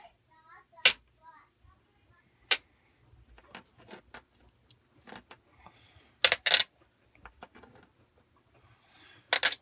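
Small metal weight cubes set down one by one on a digital scale's platform and on each other, sharp clicks a second or so apart, with a quick cluster of clicks about six seconds in and another near the end, as weight is added to a pinewood derby car.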